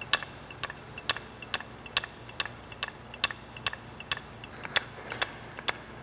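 Grease gun being pumped on the grease fitting of a compact track loader's track tensioner, clicking at an even pace of about two strokes a second as grease is forced in to tighten the rubber track.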